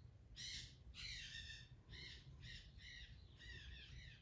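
Faint, repeated harsh bird calls, about eight short calls in four seconds.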